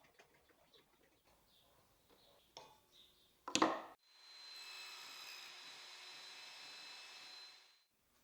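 Piece of wood being handled on the bench: one short scrape or knock about three and a half seconds in, then a faint steady hiss with a thin high tone.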